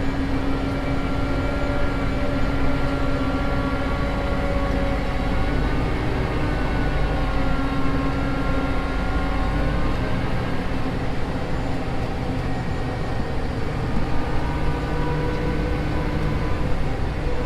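Diesel vehicle engine running steadily while driving, with road noise and a faint whine that drifts slightly in pitch.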